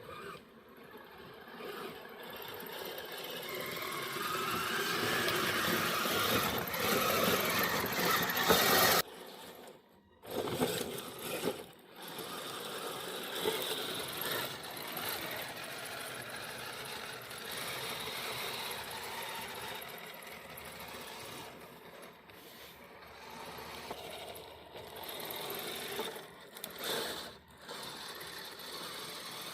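Kyosho Blizzard RC snow tractor driving on metal tracks: a motor-and-gear whine with rattling track links. It builds to its loudest, stops abruptly about nine seconds in, and comes back after a short pause. It then runs steadier and quieter, with brief let-offs.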